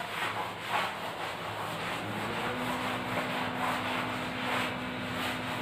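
Chalk being wiped off a blackboard with a cloth duster: repeated rubbing swishes, about two strokes a second.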